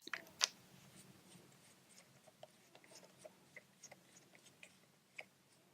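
Faint, scattered small clicks and ticks, with a slightly louder click about half a second in: a suspension shock pump being handled at the fork's air valve as the fork is reinflated.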